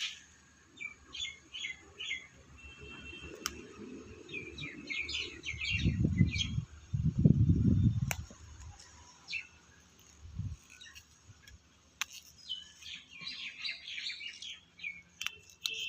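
Small birds chirping in quick clusters of short notes, on and off throughout. Two low rumbles, around six and seven seconds in, are the loudest sounds, and there are a few sharp clicks.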